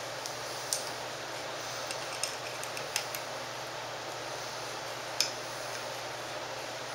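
A handful of short, light metallic clicks, the loudest about five seconds in, as a screwdriver works the set screw of a slow-motion control cable on a German equatorial telescope mount. A steady low hiss runs underneath.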